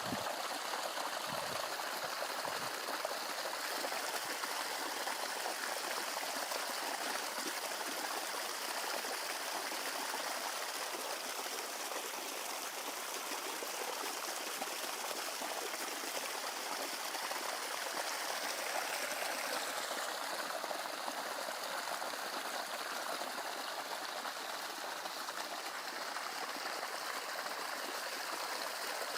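Stream water running steadily, a constant rushing and trickling with no break.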